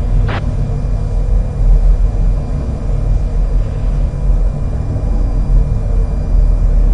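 Steady low background rumble with a faint constant hum, and one short click about a third of a second in.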